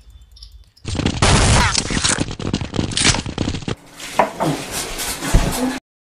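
Video-game battle sound effects, a dense rapid run of hits, clicks and zaps. Then a short clatter with a heavy thump near the end.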